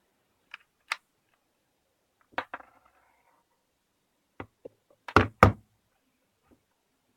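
Small hard objects handled and put down on a hard surface: scattered clicks and knocks from a power bank, charging cable and adapter being picked up and set down, the two loudest a quarter second apart about five seconds in.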